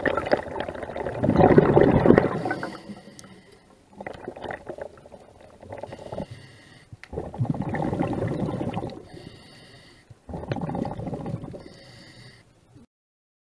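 Underwater bubbling and gurgling picked up by a submerged camera, coming in about five surges a second or two long, the strongest near the start. The sound cuts off suddenly near the end.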